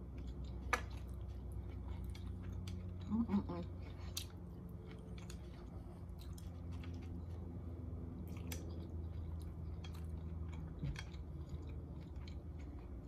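A person chewing and eating food, with scattered light clicks of chopsticks against a plate, over a low steady hum.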